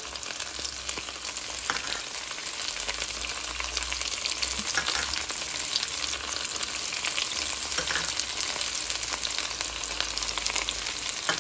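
Cut okra frying in hot oil in a stainless steel pot: a steady sizzle with fine crackling. A few light clinks of a metal spoon against the pot are heard through it.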